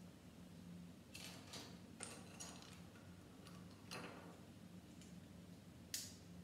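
Faint clicks and light knocks of plastic Airfix Quickbuild brick pieces being handled and pressed together, a handful of them scattered through, the sharpest about six seconds in, over a faint steady hum.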